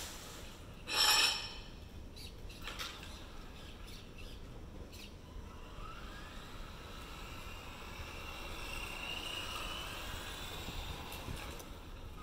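Electric radio-controlled car, a Tamiya TT-02 with full ball bearings, driving on asphalt: a faint motor and gear whine that rises slowly in pitch from about halfway through as it speeds up. A short loud rush of noise comes about a second in, and there are a few light clicks.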